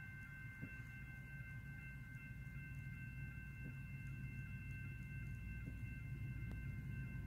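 Railroad grade-crossing warning bell ringing steadily, heard from inside a car. A low rumble sits underneath and grows slightly louder.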